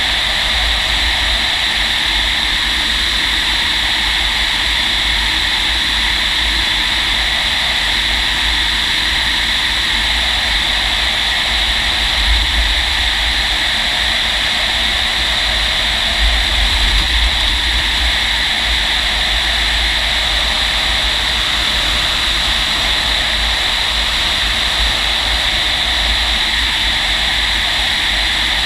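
Steady rush of air around a Fox glider's cockpit canopy on aerotow, with an unsteady low rumble of buffeting that swells briefly a couple of times midway.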